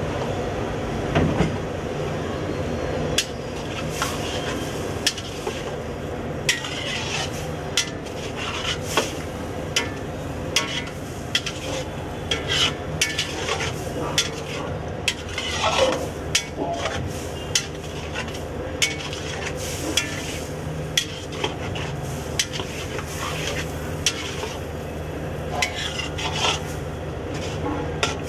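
Long metal ladle scraping and knocking against a large iron kadai, at an irregular pace, as chicken liver pieces are stir-fried with sizzling, over a steady low hum.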